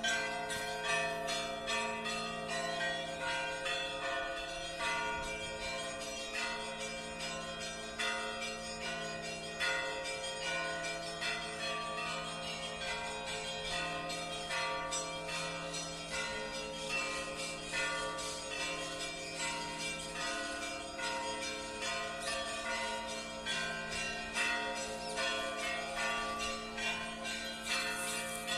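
Church bells ringing an Easter peal: a dense run of smaller bells struck several times a second over the long, lingering hum of the larger bells, at an even level throughout.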